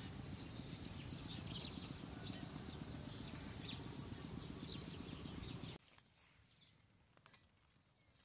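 Open-field ambience: wind buffeting the microphone with a low rumble, a steady high-pitched whine and scattered bird chirps. All of it cuts off suddenly about six seconds in.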